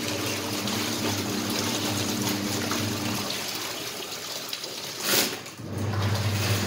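Water running steadily with a low electric hum underneath, during laundry; a brief louder rush about five seconds in, after which the hum comes back stronger.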